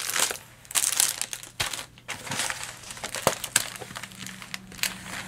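Clear plastic film on a rolled diamond painting canvas crinkling in irregular crackles, with a few sharper clicks, as hands unroll it and smooth it flat.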